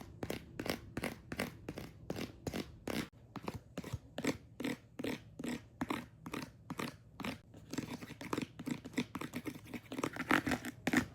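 Fingers scratching and picking at a textured item on a fidget board, a long run of short crisp, crunchy scratches at about two to four a second.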